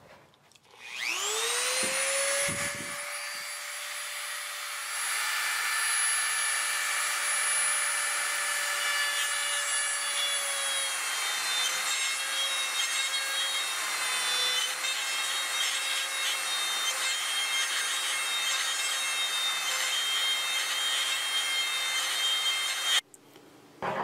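Dremel rotary tool spinning up about a second in to a steady high whine. A few seconds in it starts grinding excess cast plastic off a small molded knob, which adds an uneven rasping to the whine. The tool stops abruptly shortly before the end.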